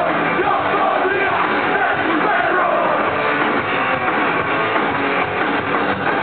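Live rock band playing loudly on stage: electric guitars and drums in a dense, unbroken wall of sound.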